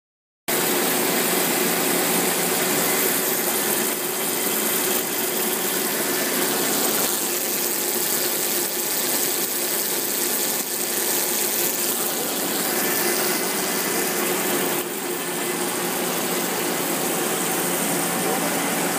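Rebuilt Falk enclosed gearbox running under a test drive, a steady mechanical running noise with a few steady tones of gear and drive hum, starting about half a second in. This is the run test that checks the remanufactured unit for bearing noise, gear noise and vibration.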